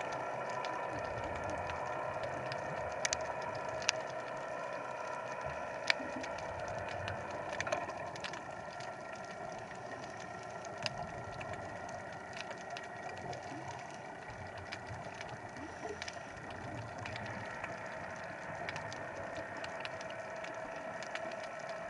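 Motorboat engine and propeller heard underwater: a steady drone made of several held tones, easing slightly after about eight seconds, with scattered sharp clicks.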